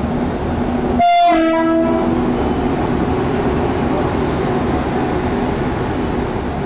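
An Indian Railways WAG-9 electric locomotive gives a short horn blast about a second in, lasting about a second, a higher note followed by a lower one. Around it is the steady running noise of the train rolling past.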